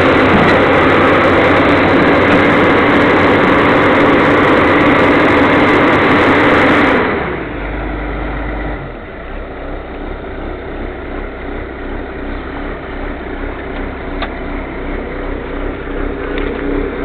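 Caterpillar 320C excavator's six-cylinder diesel engine running steadily, loud for about the first seven seconds and then noticeably quieter to the end.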